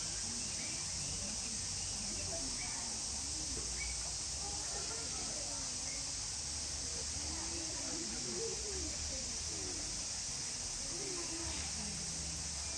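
Cicadas calling in a steady, high-pitched chorus that never lets up, with people talking indistinctly underneath.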